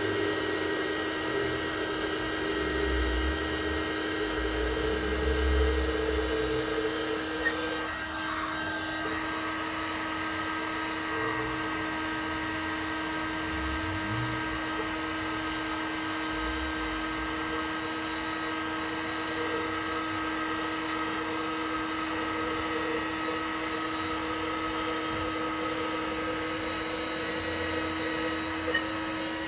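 Electric heat gun running steadily: a constant motor whine over the rush of blown air, with some low rumbling in the first several seconds.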